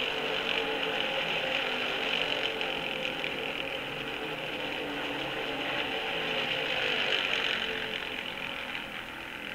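1964 NASCAR V8 stock car engines running on the track, heard from an old record. The engine sound swells to its loudest about seven seconds in, then fades.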